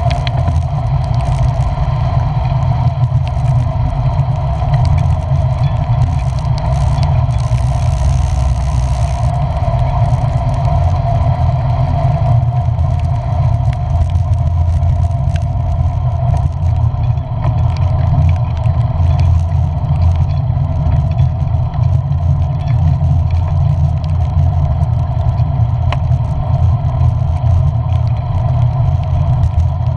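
Vehicle driving on a wet road: a steady low engine-and-road rumble, with a brief hiss about eight seconds in.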